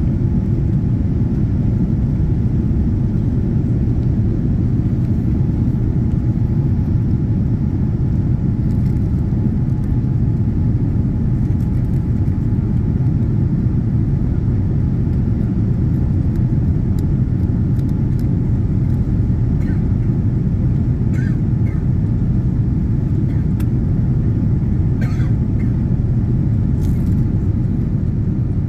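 Steady in-cabin rumble of a Boeing 787-9 Dreamliner in its climb after takeoff: engine and airflow noise from its Rolls-Royce Trent 1000 turbofans.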